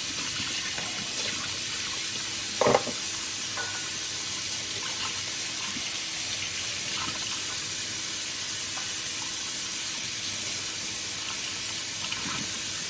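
Tap water running steadily, rinsing off cleaned carburetor parts, with a brief knock about three seconds in.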